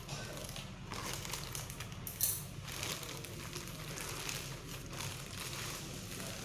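Plastic packaging crinkling and rustling as it is handled and unwrapped, with a sharper crackle about two seconds in, over a steady low hum.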